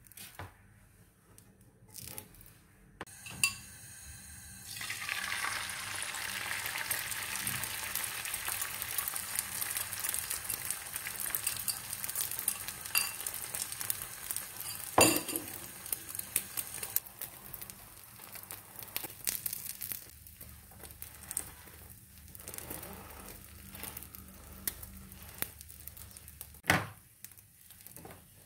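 Food sizzling in a hot frying pan. The sizzle starts suddenly about five seconds in and later fades, with one sharp knock of a pan or utensil near the middle and small clinks of kitchenware.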